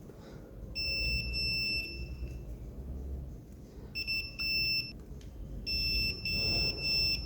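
Multimeter continuity buzzer beeping three times, a steady high tone about a second long each time, the later beeps stuttering briefly as the probes make and lose contact: the sign of continuity between the switch terminals being probed.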